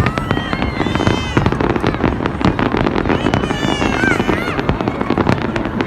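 Fireworks display going off: a rapid, continuous stream of bangs and crackles.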